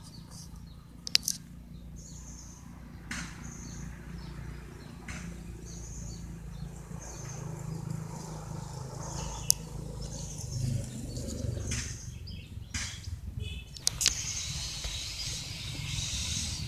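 Birds chirping on and off over a low steady hum, with a few sharp clicks.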